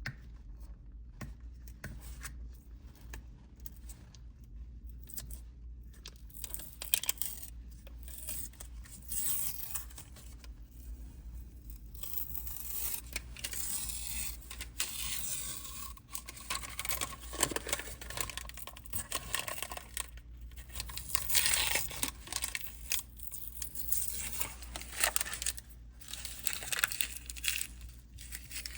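Protective paper masking being peeled off an acrylic (PMMA) sheet: an irregular ripping and crinkling that comes in uneven stretches and grows louder from about six seconds in.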